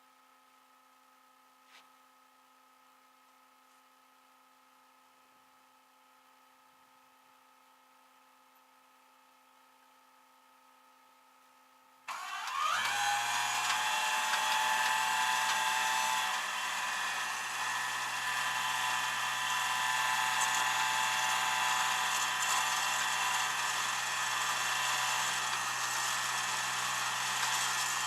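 A faint steady hum, then about twelve seconds in a vehicle engine starts with a quick rise in pitch and settles into steady running.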